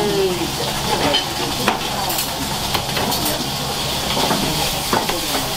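Food sizzling in a hot frying pan on a restaurant kitchen range, with metal utensils clinking and scraping against the pans several times.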